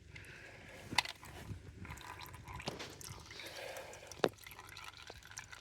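Hydraulic fluid draining from a snowplow pump and dripping into a container, with two sharp clicks, one about a second in and one past four seconds.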